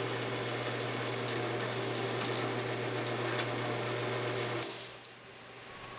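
Drill press running with a steady, constant-pitched hum as a letter D drill bores a pre-ream hole in an aluminium soft jaw and is drawn back out. The sound cuts off suddenly about three-quarters of the way through.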